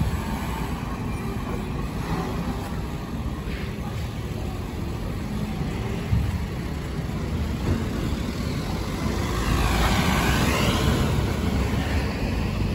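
Road traffic on a city street: a steady rumble of vehicle engines and tyres, with one vehicle passing close about ten seconds in.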